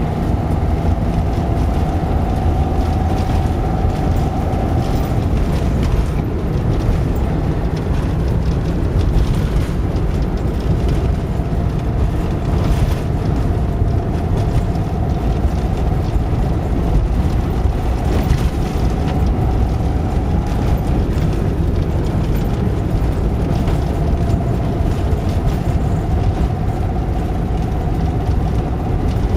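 1989 Talbot Express motorhome's 2-litre petrol engine pulling the van along at part throttle, a steady drone with road noise and a higher whine that fades in and out a few times. At gentle acceleration this engine has a metallic, hollow knock, which the owner is trying to diagnose.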